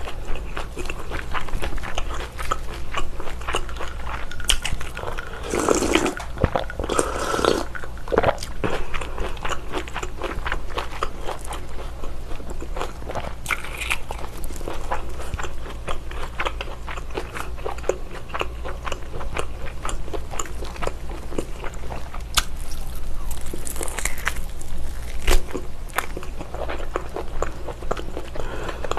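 Close-miked eating sounds of biting into and chewing a baked whole slab of bacon, dense fine clicks throughout, with two louder bursts about six and seven seconds in.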